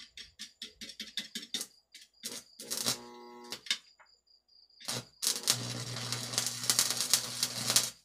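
Stick-welding arc from a homemade microwave-oven-transformer welder. The electrode is tapped and scratched on rusty metal in a quick run of clicks, catches briefly with a buzzing hum around three seconds in, then holds a steady crackling arc over a low mains hum from about five seconds in.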